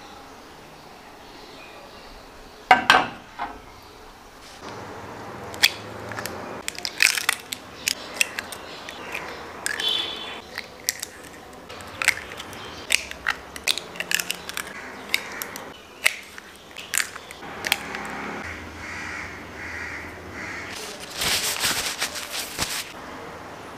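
Eggs being cracked one after another into a glass baking dish: a run of short, sharp shell cracks and taps. A paper towel rustles near the end.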